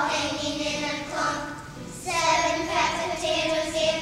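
A group of kindergarten children singing together, holding long notes. The singing eases off briefly about halfway through, then comes back in strongly.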